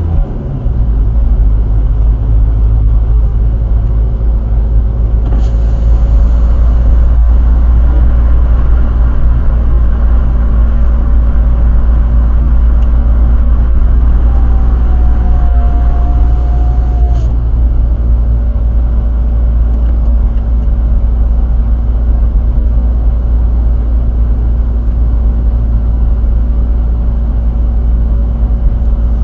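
Skoda Fabia vRS's 1.9 TDI diesel engine heard from inside the cabin under sustained power on track, a steady loud drone with road and wind noise, after a quick gear change just after the start.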